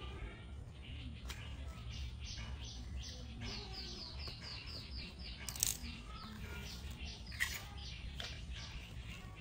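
Small birds chirping in the background, with a rapid run of short, high, falling chirps in the middle, over a low steady hum. Two sharp crackles cut in, the loudest sounds, a little after the middle and again about two seconds later.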